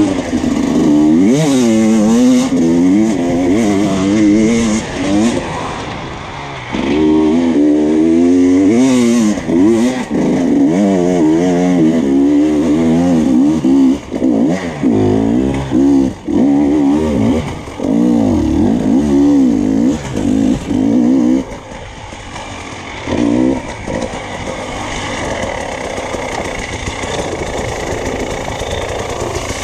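Enduro dirt bike engine heard close up, revving hard and dropping again and again as the throttle is opened and closed. About two-thirds of the way through, the revs fall to a lower, steadier run with one short blip.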